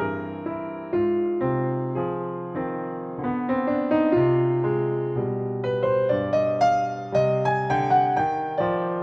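Background piano music: a gentle melody over chords, each note struck and left to fade.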